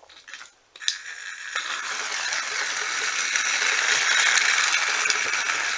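Battery-powered TrackMaster Charlie toy engine switched on with a click about a second in, then running along plastic track pulling a boxcar: a steady motor whir with wheel and track rattle that grows louder as it comes closer.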